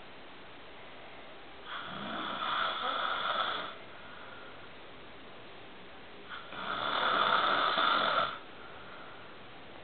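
A man snoring: two long snores of about two seconds each, roughly four and a half seconds apart.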